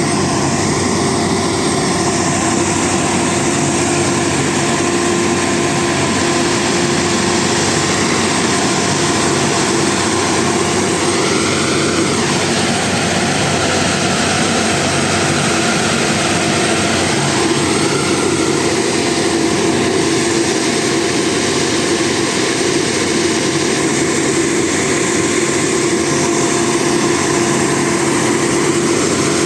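Heavy diesel construction machinery running steadily, its engine note shifting briefly twice partway through.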